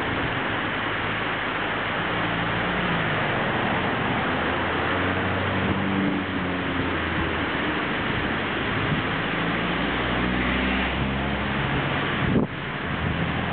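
GWR steam railmotor approaching under steam, heard faintly as a low rumble beneath a steady rush of wind on the microphone. A brief knock near the end, after which the rushing drops a little.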